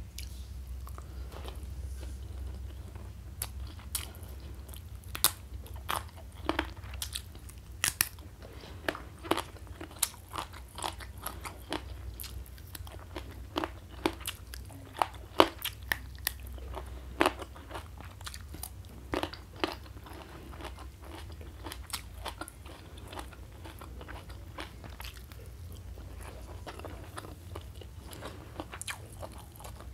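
Close-miked mouth sounds of a person eating by hand: chewing with many irregular, crisp crunches and bites, a few much louder than the rest, over a low steady hum.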